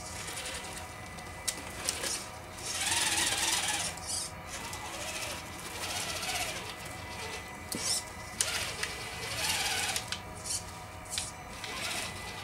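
Brushed 55-turn electric motor and gear train of an RC rock crawler whining in several bursts as it is throttled up the rocks, with a few sharp clicks and knocks of the tyres and chassis on stone.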